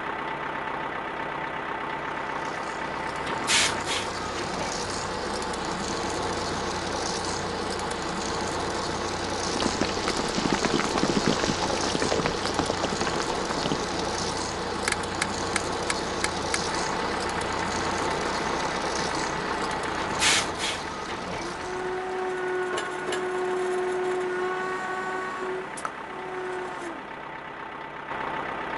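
Cartoon truck sound effects: a steady engine rumble with two short air-brake hisses, one a few seconds in and one about two-thirds of the way through. A few held tones join in near the end.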